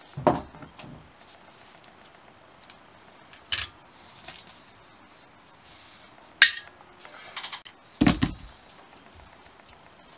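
Several separate clinks and knocks of small metal carburettor parts being handled and set into a metal parts tray, with a heavier dull thump about eight seconds in as the carburettor body is moved on the table.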